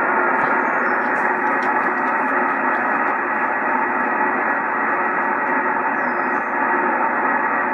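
Yaesu FT-2000D HF transceiver's speaker giving a steady hiss of static from the 10-metre band in single-sideband mode, muffled and narrow as the receiver's filter cuts off everything above the voice range.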